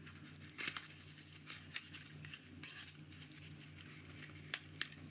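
Faint handling sounds of a small pen box being slid open: light scrapes, rustles and a few soft clicks, over a steady low hum.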